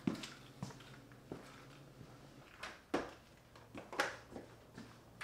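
Scattered light knocks, thuds and shuffles of a person getting up and moving about, about a dozen irregular short sounds with quiet between them.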